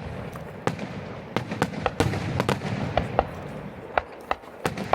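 Fireworks display: a rapid, irregular series of sharp bangs and crackles from bursting shells, several each second, over a low rumble.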